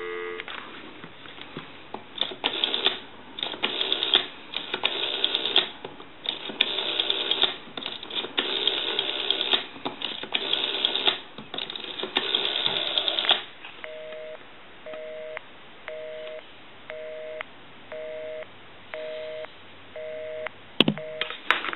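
Stromberg-Carlson 1212 rotary telephone dialling: bursts of rapid pulse clicks as each digit is dialled and the dial runs back. Then a North American busy signal, a two-tone beep about once a second, because the number dialled is the line's own, cut off by a click near the end.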